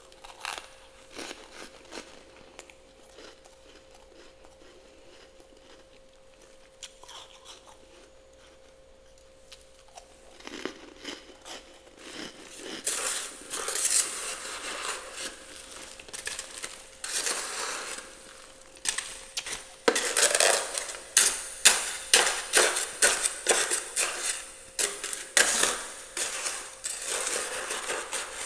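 Frost being scraped out of a freezer: a few scattered scrapes at first, then from about ten seconds in a dense run of loud scraping and crunching strokes through the packed frost.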